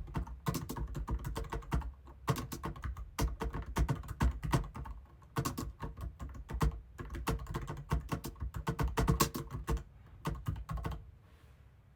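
Fast typing on a computer keyboard, keys clattering in quick bursts with short pauses, stopping about eleven seconds in.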